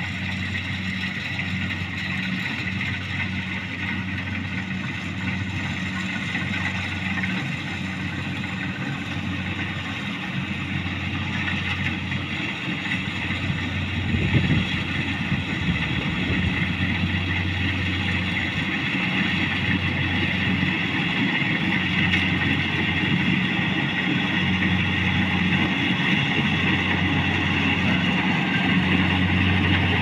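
Rice combine harvester's diesel engine running steadily under load as it harvests, growing slowly louder as it approaches. There is a brief thump about halfway through.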